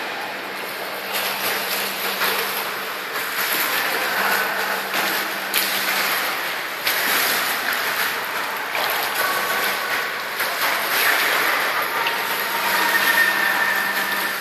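Continuous splashing and churning water from a swimmer doing backstroke, arms striking and feet kicking the surface, over the echoing wash of an indoor pool with a faint low steady hum.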